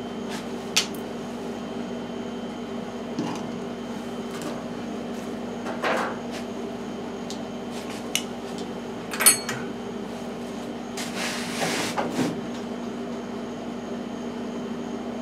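Scattered knocks and clatters of tools and parts being handled in a workshop, the sharpest about nine seconds in, with a longer scraping rustle about eleven seconds in, all over a steady low hum.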